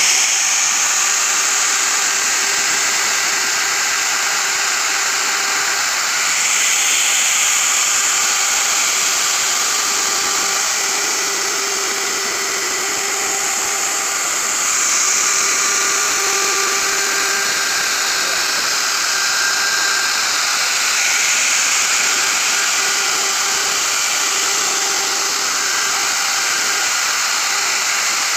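Dong Cheng plunge router running steadily at high speed while its bit routes a carved floral pattern into a wooden board; the sound swells a little several times as the cut loads the bit.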